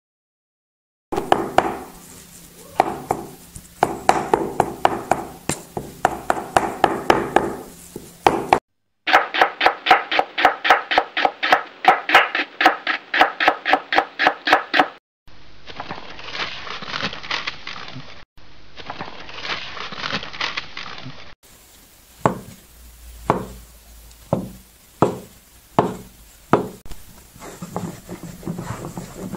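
Kitchen cleaver chopping on a round wooden chopping block: first uneven knocks, then fast, even chopping at about three to four strokes a second as pork and celery are minced for dumpling filling. After a stretch of steady rustling noise, a small wooden rolling pin knocks on a wooden board about every second while dumpling wrappers are rolled out.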